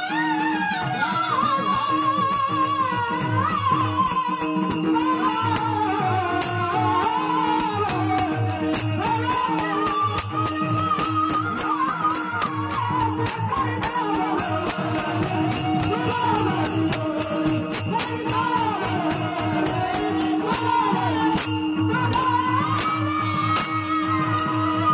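Marathi folk singing: a man's voice carrying an ornamented, wavering melody over a steady held drone, with a regular drum beat and jingling rattle-like percussion keeping time.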